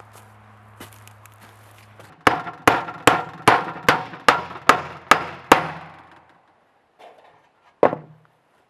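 Hammer blows: a run of about nine quick strikes, each with a short ring, then one more after a pause of about two seconds.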